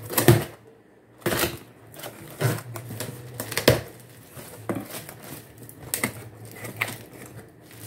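A utility knife slits the packing tape on a cardboard box, then the cardboard flaps are pulled open and the contents handled: a run of separate scrapes and knocks, about one a second.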